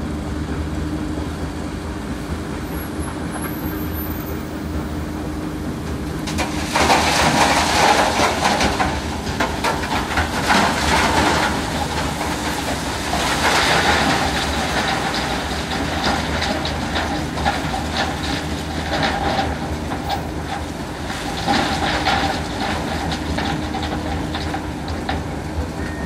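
Heavy machinery engines running steadily. From about seven seconds in, rock clatters and grinds through a mobile stone crusher fed by an excavator, coming in loud surges over the running engines.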